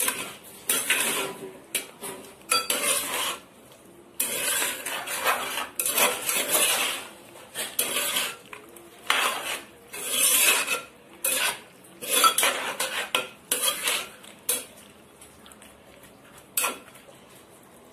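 A spoon stirring chunky sliced vegetables in gravy in a clay pot, scraping and clattering against the pot in irregular bursts. The stirring goes quieter near the end, with one last click.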